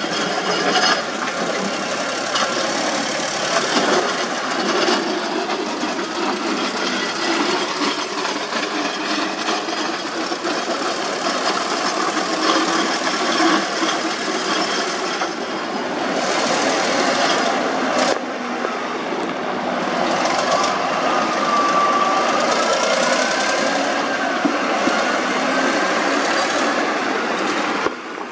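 Construction machinery running with a steady, dense mechanical clatter. A faint wavering whine rises and falls over it in the second half.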